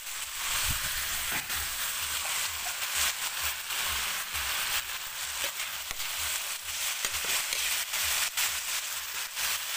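Long beans and canned sardines in tomato sauce sizzling in a metal wok. A metal spoon stirs them, scraping and knocking lightly against the pan about three times a second.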